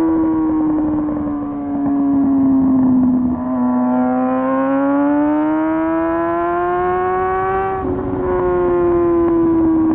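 Motorcycle engine running hard, its pitch sagging slightly, then climbing steadily for about four seconds before dropping suddenly and holding steady.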